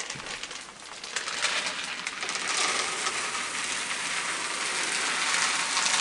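Dry kibble poured from a plastic container onto wooden deck boards: a dense, continuous clatter of small pellets that starts about a second in and grows louder.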